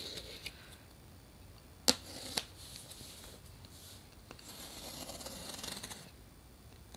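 Two sharp clicks, then a box cutter scraping and slicing through packing tape on a cardboard box, a scratchy sound lasting about a second.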